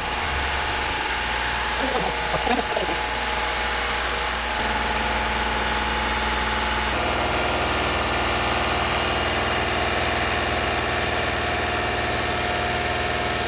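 Toyota 2GR-FE 3.5 L V6 engine idling steadily while air is bled from its cooling system. The hum changes character abruptly about seven seconds in.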